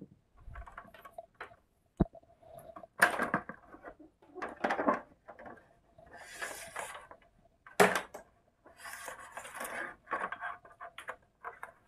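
Plastic and metal parts of an LED TV being handled and fitted back together by hand: irregular scraping, rubbing and clicking, with a couple of sharper knocks.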